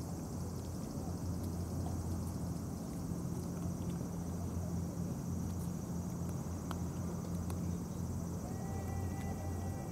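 Steady, high-pitched insect chirring over a low, steady hum. A faint steady tone comes in near the end.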